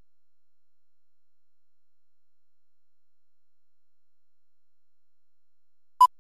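Near silence, then, near the end, a single very short high-pitched beep: the two-pop sync tone of a film leader countdown, sounding on the '2' frame.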